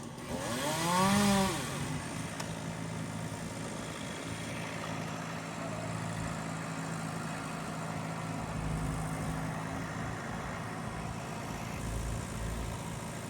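A chainsaw's engine revs up and back down once near the start, then an engine runs on steadily at a low idle.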